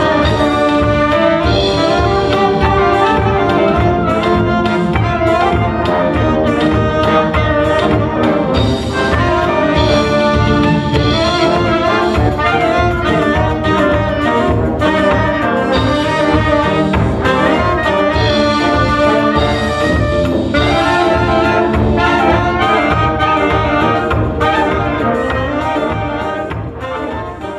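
Balkan brass band playing a tune: trumpets and saxophone on the melody over low brass horns, with a drum kit keeping a steady beat. The level eases slightly near the end.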